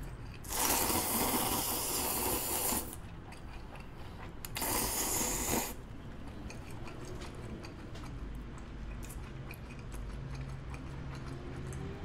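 A person slurping up black-bean-sauce noodles: a long slurp of about two seconds, then a shorter one about four and a half seconds in.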